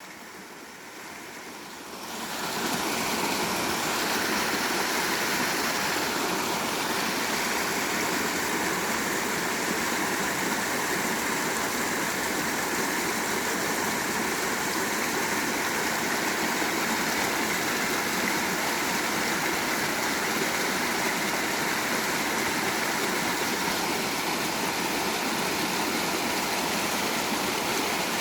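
Mountain stream running high after rain: a steady rush of water that swells to full level about two seconds in and then holds constant.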